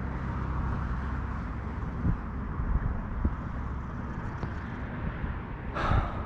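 Wind buffeting the microphone as a steady low rumble and hiss, with a few light knocks about two and three seconds in and a short burst of noise near the end.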